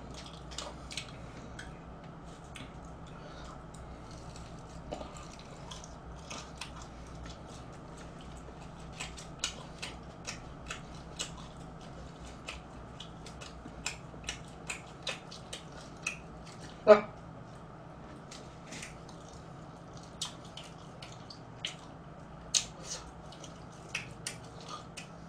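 Crispy fried chicken being torn apart by hand and chewed close to the microphone: irregular sharp crunches and crackles of the fried batter and bone, with one louder sound about two-thirds of the way in.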